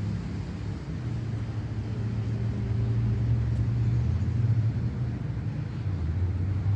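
A steady low rumble that swells a little louder about a second in and eases back near the end.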